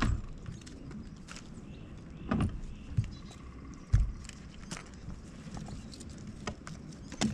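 Scattered knocks and clicks of fishing gear being handled in a plastic kayak, with a low thump about four seconds in, over a steady low wind rumble on the microphone.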